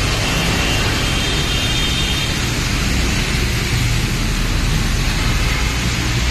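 Heavy container trucks passing close by, diesel engines rumbling low under a steady hiss of tyres on wet pavement, with a faint high whine in the first two seconds.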